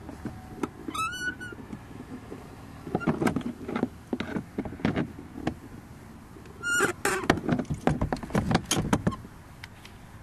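Pliers gripping and twisting a stripped screw in a scooter's plastic under-seat compartment: clusters of clicks, knocks and scraping around the middle and again later, with a couple of short squeaks about a second in and near seven seconds.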